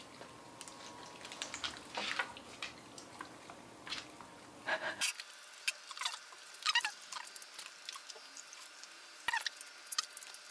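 A Siberian husky and a Shiba Inu eating sticky, chewy dog cake. Scattered wet smacks and clicks come from their jaws and tongues as they chew and lick.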